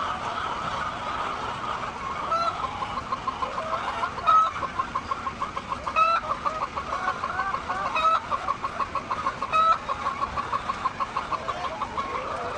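Hens clucking: a fast run of short clucks, with a louder call breaking in about every two seconds.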